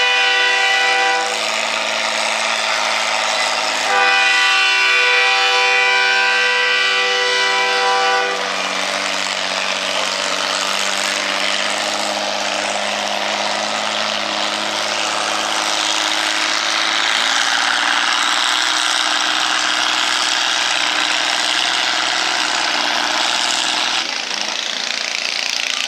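Antique tractor engine running flat out in a pull, a loud steady drone. About eight seconds in the pitch sags slightly and the sound turns rougher as the engine lugs under the sled's load, easing off near the end.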